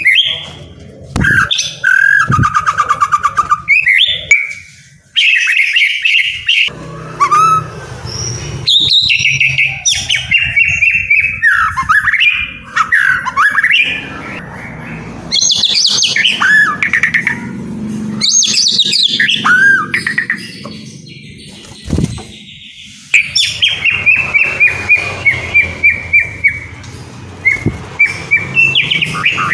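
White-rumped shama singing in full song: a long, varied run of loud whistled phrases and pitch glides, ending in a rapid series of repeated notes.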